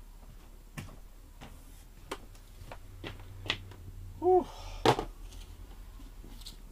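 Handling noise: scattered clicks and knocks as a motorcycle helmet is taken out of a cloth helmet bag, with a sharp knock just before five seconds in. A brief voice-like sound comes just before that knock, and a low steady hum runs underneath.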